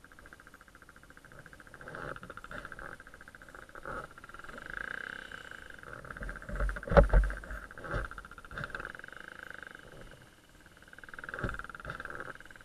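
SJCAM SJ4000 action camera being handled in its mount, giving knocks and rubbing thumps, the loudest about seven seconds in, over a faint steady hum.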